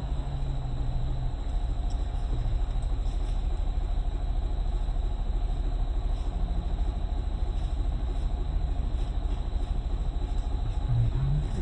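Safari vehicle's engine running as it drives along, a steady low rumble.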